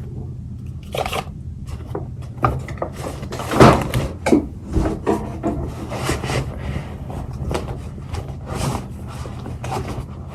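Packaged products being handled and taken out of a goodie bag: irregular rustling, rubbing and light knocks, the loudest knock about three and a half seconds in.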